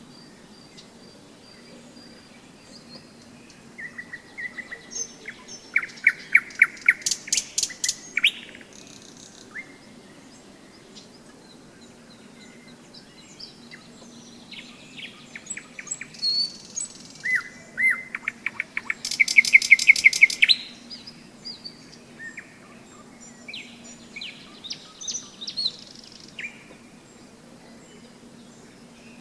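Nightingale singing in loud, separate phrases of rapid repeated clicking and whistled notes, with quieter fragments of song between them. The two loudest phrases come about four seconds in and about sixteen seconds in, each ending in a fast pulsing rattle.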